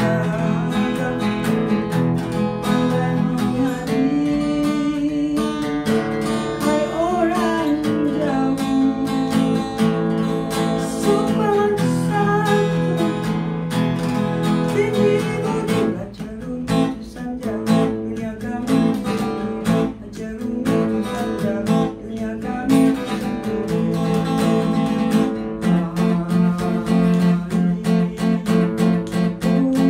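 Steel-string acoustic guitar strummed in an instrumental passage of a song, sustained chords with a steady strumming rhythm that turns choppier and more clipped about halfway through.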